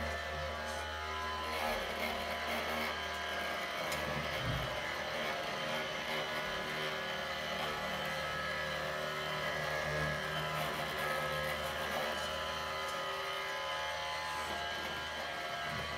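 Radio-controlled model construction vehicles running, a steady mechanical hum and buzz from their motors, with a brief low thump about four and a half seconds in.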